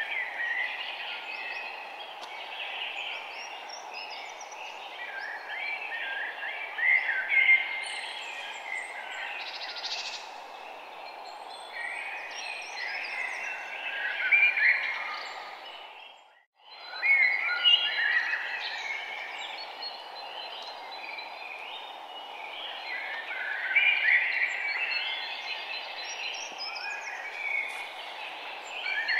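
Many birds chirping and calling over a steady outdoor hiss. The sound fades out briefly about halfway through and comes straight back in.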